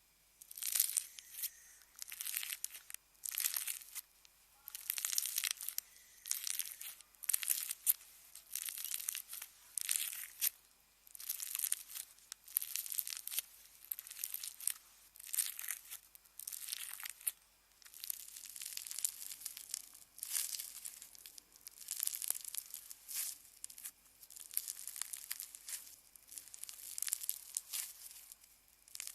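Slime being squeezed and pulled by hand, crackling and popping in repeated bursts about once a second.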